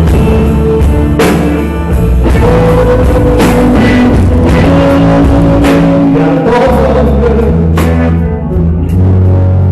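Live rock band playing a slow rock song on electric guitar, bass guitar and drums, with a cymbal crash about every two seconds.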